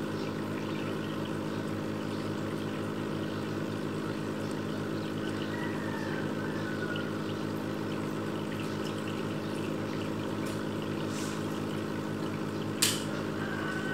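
Aquarium filter pump running with a steady electric hum and water trickling into the tank, with one sharp click near the end.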